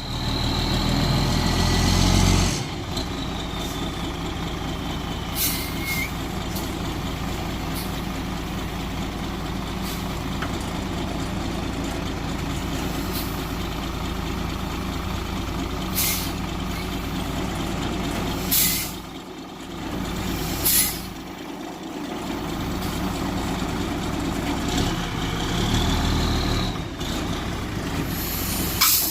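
Large diesel engine running steadily, revving up in the first couple of seconds and again near the end, with several short sharp hisses of air or hydraulics.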